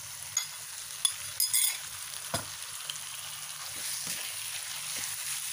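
Raw chicken pieces going into chili spice paste frying in a non-stick wok, with a steady frying sizzle. A few sharp clacks and scrapes of the spatula against the pan come through, the loudest just over a second in.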